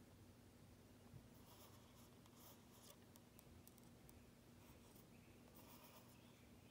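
Faint scratching of a drawing tool on a paper index card as petals are sketched in short strokes, in clusters about a second in and again near the end.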